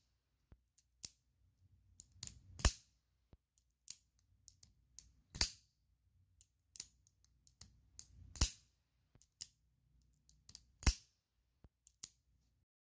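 Action of a Taurus 942 M small-frame double/single-action revolver, sideplate off, being dry-cycled in double action by trigger pulls. Four loud, sharp metallic clicks, one about every two and a half to three seconds, each with fainter clicks of the moving parts before and after it.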